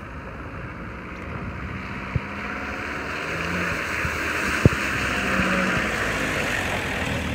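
A 4WD ute towing a caravan drives through a muddy puddle on a wet dirt track: water splashes and the engine runs, growing louder as the rig nears. Two sharp knocks sound, one about two seconds in and a louder one past the middle.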